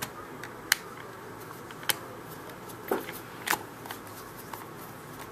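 Sharp plastic clicks and light ticks of a Torx T8 screwdriver working the screws of an Xbox 360 controller's plastic shell, with four louder clicks among scattered lighter ones.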